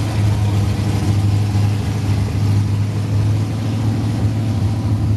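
Pontiac Trans Am's V8 engine idling steadily, with a deep even hum.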